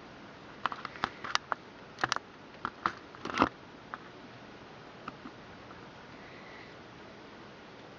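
Sharp clicks and knocks of PC case and drive hardware being handled, a quick run of them in the first few seconds with the loudest about three and a half seconds in, then a few fainter single clicks.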